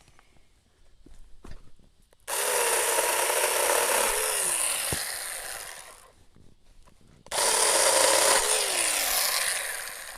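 A 24-volt cordless 4-inch mini chainsaw runs twice, each time for about three to four seconds, its chain cutting into a tree limb almost 3 inches thick. In each run the motor's pitch drops as the chain bites into the wood.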